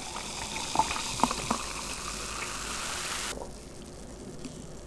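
Coca-Cola poured from a bottle into a glass mug, fizzing steadily as it fills, with a few small clicks; the fizzing pour stops suddenly a little over three seconds in.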